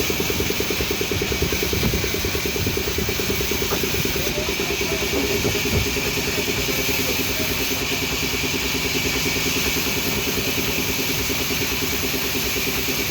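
Band saw running steadily: a continuous motor hum with a fast, even pulse and a steady hiss.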